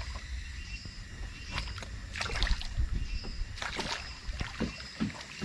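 River water splashing and sloshing around a landing net being worked in the water beside a small boat, in a series of short irregular splashes over a steady low rumble.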